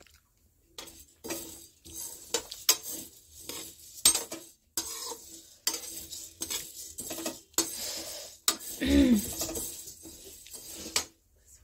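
Metal slotted spatula stirring and scraping arhar (toor) dal as it dry-roasts in a steel kadhai: irregular metal-on-metal scrapes and clinks with the rattle of the dry lentils.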